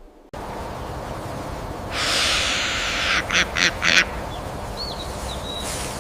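Animal calls over a steady background noise: a rush of noise about a second long, then three short sharp calls in quick succession, and a faint high chirp a second later.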